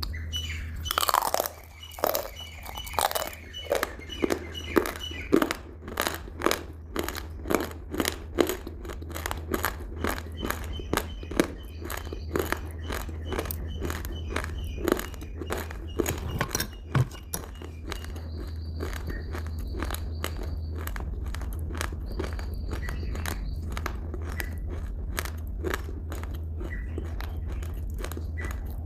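Crunchy food being bitten and chewed close to the microphone: a run of sharp crunches about two a second, loudest during the first half and then smaller and quieter, over a steady low hum.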